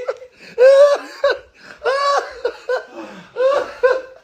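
A person laughing loudly in about five high-pitched bursts.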